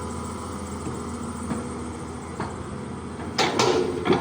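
Caterpillar 320D excavator's diesel engine running steadily, with loud scraping knocks a little over three seconds in and again near the end.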